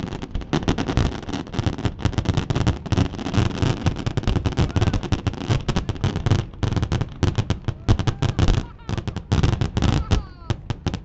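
Fireworks exploding in a rapid, near-continuous barrage of bangs and cracks, thinning to scattered single bursts near the end.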